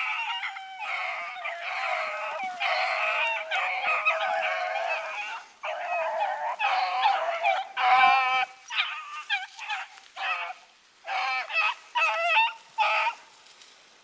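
A young rabbit hound baying on a rabbit's scent trail: long drawn-out bawls at first, then shorter separate calls with gaps in the second half.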